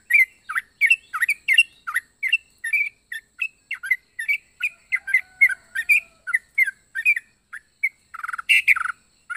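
Yellow-vented bulbul (trucuk) calling in a quick unbroken series of short chirping notes, about three a second. A few louder, harsher notes come near the end.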